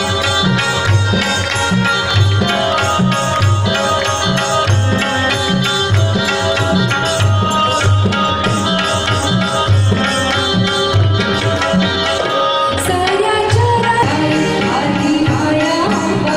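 Live Indian devotional music: hand drums keep a steady beat under an electric keyboard melody, with singing.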